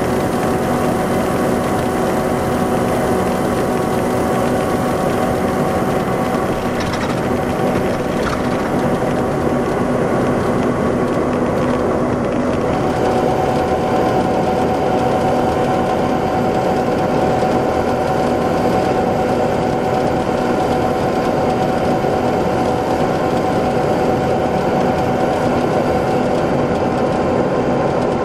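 Detroit Diesel Series 60 straight-six diesel engine of an MCI D4500 coach running steadily, a constant drone with several steady whining tones that hold their pitch; one tone grows a little stronger about halfway through.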